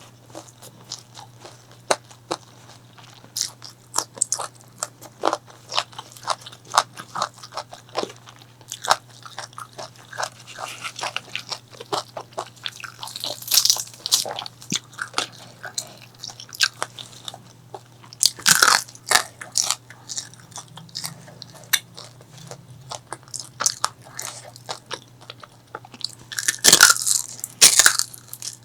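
Close-miked eating of a crispy fried chicken and rice meal: irregular crunchy bites and chewing, with the loudest crunches about two-thirds of the way through and near the end. A faint steady low hum runs underneath.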